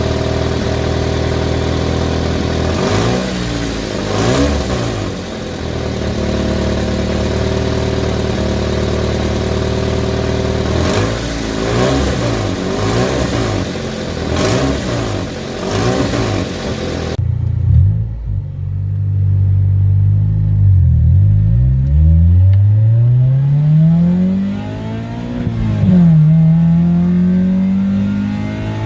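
Car engine running at a steady pitch, then, after an abrupt cut about 17 seconds in, revving up with rising pitch, dropping briefly around 26 seconds in as at a gear change, and climbing again.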